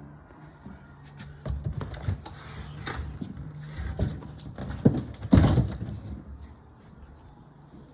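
Handling noises: irregular knocks, bumps and rustling, loudest around five seconds in, over a steady low hum.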